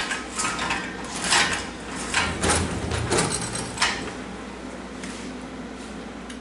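Welded steel chassis dolly rolled across the shop floor on its new casters, metal clanking and rattling irregularly with a low rumble, then easing off to a faint rattle after about four seconds.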